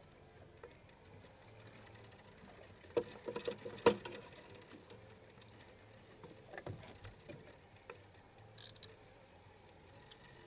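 Scattered clicks and knocks of a fishing rod and reel being worked aboard a small fiberglass boat while a fish is played. A quick cluster of sharp knocks about three to four seconds in is the loudest part, more light clicks follow a few seconds later, and a brief hiss comes near the end.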